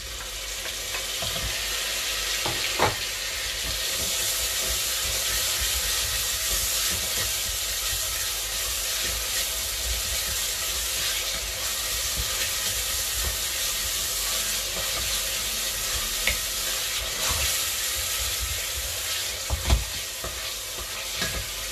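Chopped tomato sizzling in a steel pot of frying onion, garlic and ají paste while it is stirred with a wooden spoon: a steady frying hiss, with a couple of sharp knocks, one about three seconds in and one near the end.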